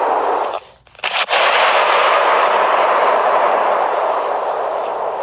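Fireworks: a loud, steady hissing rush, broken by a short drop-out about half a second in, then two sharp bangs in quick succession before the rush resumes.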